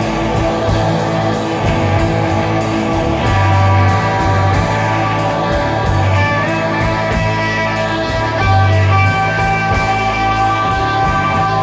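Live psychedelic rock band playing: electric guitar with long held notes over a pulsing bass.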